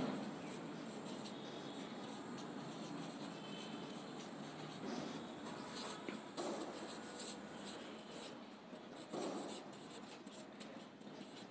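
Marker pen writing on a whiteboard: a run of short, faint scratchy strokes as words are written out.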